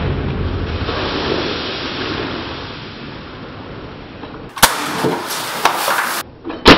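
CO2-powered Umarex Legends Makarov BB pistol firing: two sharp shots about two seconds apart, the first about four and a half seconds in, with a fainter knock between them. Before the shots there is a steady background hiss.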